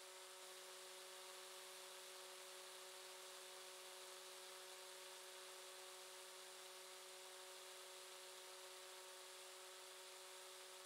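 Near silence: room tone, a faint steady hiss with a faint steady hum.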